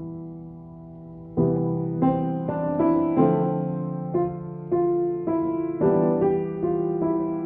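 Slow, improvised solo piano. A held chord fades away, then fresh chords and single notes are struck about every half second, each ringing and dying away.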